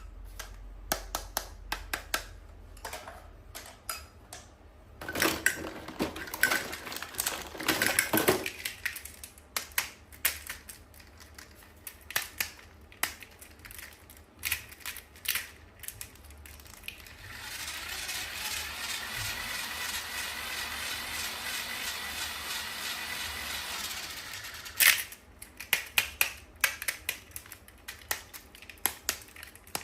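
Close-up handling of toys and their plastic packaging: many small clicks and taps, a few seconds of crinkling about five seconds in, then a steady hiss for several seconds in the second half before the tapping resumes.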